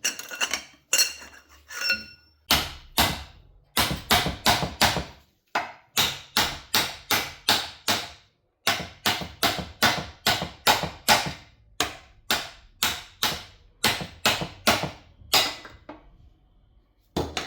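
Repeated hammer blows, about two to three a second, with two short breaks. Lighter metallic clinks of tools come in the first two seconds, before the hammering starts.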